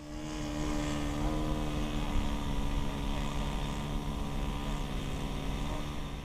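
Model aeroplane's small piston engine and propeller running steadily at an unchanging pitch.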